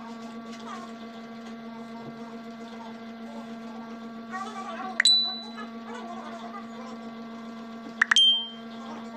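A steady electrical hum underneath faint eating noises. About five seconds in and again about eight seconds in comes a sharp click, each followed by a short, high, ringing tone that fades within about half a second.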